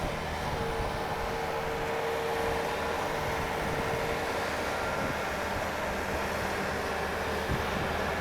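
Diesel engine of a Bobcat T590 rubber-tracked skid steer running steadily, with a steady whine over it that sets in about half a second in and fades near the end.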